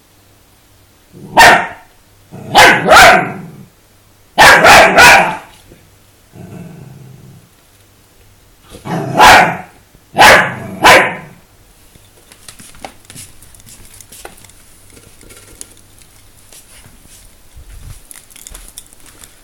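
Kaninchen dachshund barking excitedly: about nine loud barks in bunches of one to three over the first ten seconds or so, with a lower, quieter grunt among them. After that come faint scuffling ticks.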